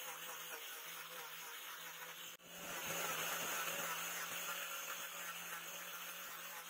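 Electric angle grinder with a sanding disc running steadily and sanding a laminated wooden knife handle, a constant motor hum under the rasp of the disc on the wood. The sound drops out for an instant about two and a half seconds in, then resumes.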